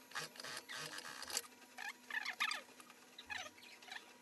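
Dress shirt fabric being handled and moved at a sewing machine: soft rustling and light clicks, with a few faint short squeaks about two seconds in and again near the end.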